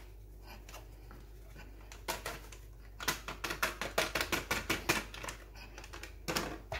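Fingers flicking a plastic sachet of coconut milk powder to knock the last powder out: a quick run of sharp taps, about five a second, for around two seconds, with a few single taps before and after.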